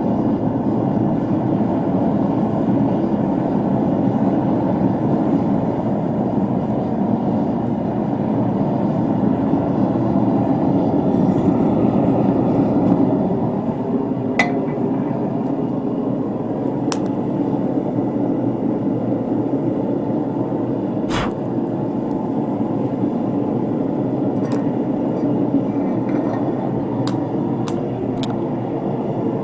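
Gas forge burner running with a steady roar, with several sharp pops in the second half from the popcorn kernels in the pan inside the forge as they begin to pop.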